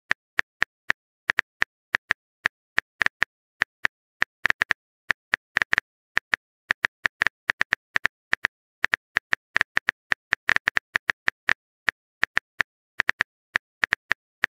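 Smartphone keyboard tap clicks: dozens of short, sharp ticks at an uneven typing pace, some in quick runs, as a text message is typed out.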